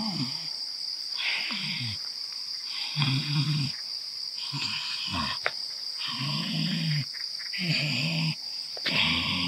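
A man growling and grunting in short, throaty bursts, about one a second, as he voices a possessing jinn in a trance. Crickets chirp steadily behind.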